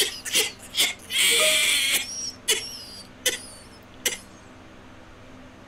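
A man's stifled laughter: short breathy snorts, one long wheezy exhale, then a few last catches of breath that die away about four seconds in.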